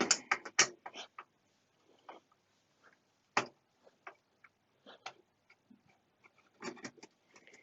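Scattered sharp clicks and knocks of hands working circuit cards against the metal chassis of an open HP 5326B frequency counter, with a board catching as it is pulled. A quick run of clicks comes in the first second, a single loud click about halfway, and another cluster near the end.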